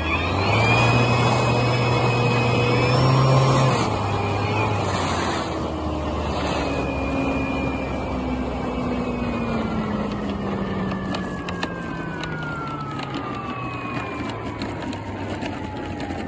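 RC model plane's motor heard from on board, with wind noise: its pitch rises about half a second in and holds for a few seconds. Then it winds steadily down as the throttle comes back for landing. Light ticks and knocks come in over the last few seconds.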